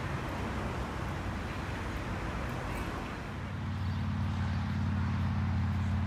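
Steady rush of road traffic noise. About three seconds in it gives way to a steady low hum.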